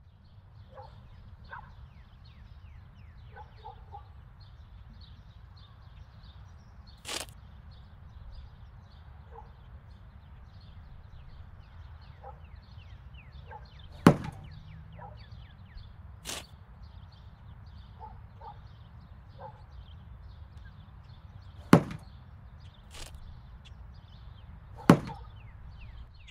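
Outdoor ambience: a steady low wind rumble under constant high chirping, broken by six sharp cracks. The three loudest cracks come about halfway through and twice near the end.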